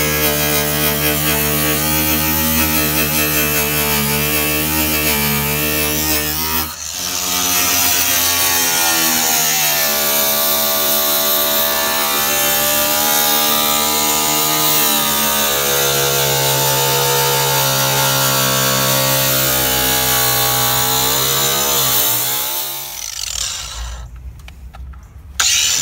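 Cordless angle grinder with a cut-off wheel cutting through the sheet metal of a truck hood: a steady motor whine whose pitch sags and recovers as the wheel bites. It dips briefly about seven seconds in, winds down about twenty-two seconds in, then starts up loud again just before the end.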